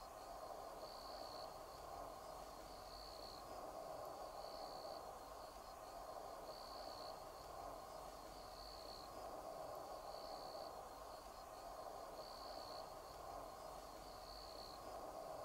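Faint outdoor ambience: an insect chirps in short high pulses, each about half a second long, repeating about every two seconds over a steady low hiss.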